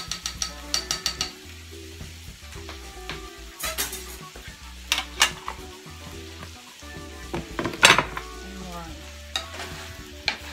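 Sausage, bacon and onions sizzling in a nonstick skillet. In the first second or so a seasoning shaker is shaken quickly over the pan, about seven clicks a second. After that a wooden spatula stirs the food, with several sharp knocks and scrapes against the pan, the loudest near eight seconds in.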